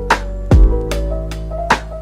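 Background music with a steady drum beat: a heavy kick drum about half a second in and a sharp hit near the end, over sustained instrument notes.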